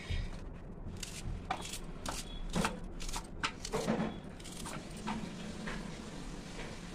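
Knife slicing through a raw onion held in the hand over a steel plate: short crisp cuts, about two a second, unevenly spaced.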